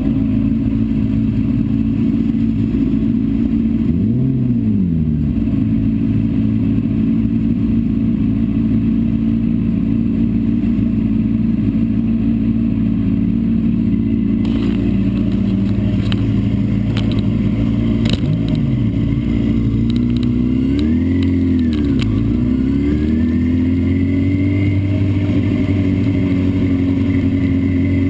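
Vehicle engine heard onboard during a track session, running at a steady pitch for long stretches. The pitch dips briefly about four seconds in and twice more past the middle, then rises and holds higher near the end, with a few light clicks in between.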